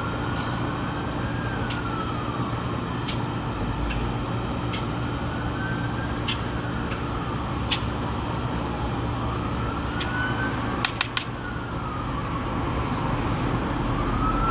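Emergency-vehicle siren wailing, its pitch rising and falling slowly, about one cycle every four to five seconds, over a steady low hum. A quick cluster of sharp clicks comes about eleven seconds in.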